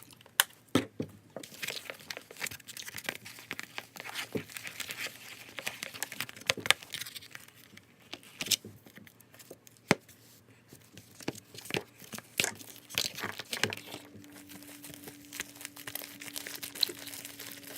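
Homemade slime being kneaded and stretched by hand, giving off an irregular run of crackling pops.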